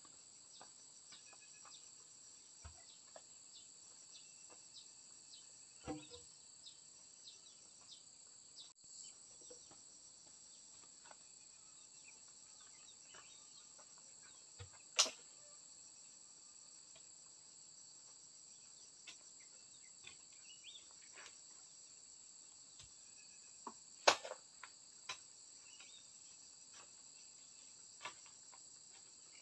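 Steady, high-pitched insect chorus, with a few sharp knocks scattered through it, the loudest about halfway and about two-thirds of the way in.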